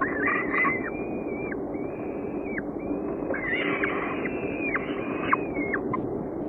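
Falcon chicks begging at the nest while a parent feeds them: a string of drawn-out, high calls, each up to about a second long and dropping in pitch at the end, over a steady low hum from the webcam.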